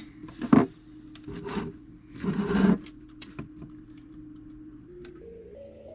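Small clicks and a brief scraping rustle of brass clock-movement parts being handled as wheel pivots are worked into the plate, with one sharp click about half a second in, over a steady low hum.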